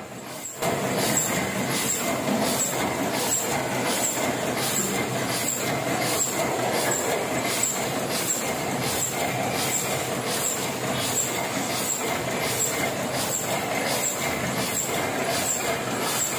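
Heidelberg GTO sheet-fed offset printing press running: a steady mechanical clatter with a regular beat of about two strokes a second, one per sheet cycle.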